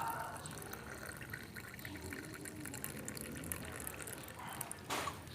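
Water splashing and trickling, with many small crackling drops, then a brief louder gush near the end.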